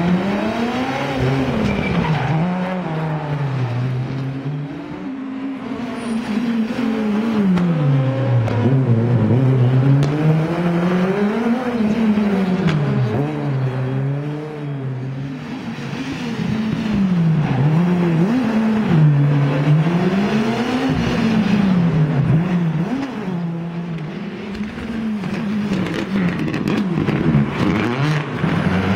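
Rally car engine running hard, its pitch climbing and dropping again and again as the car accelerates, shifts gear and brakes through the circuit's corners.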